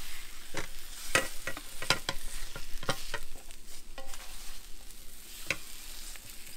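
Egg-white omelet sizzling faintly in a frying pan just off the heat, while a cooking utensil scrapes and knocks against the pan a dozen or so times, most of them between one and three seconds in and one more at about five and a half seconds.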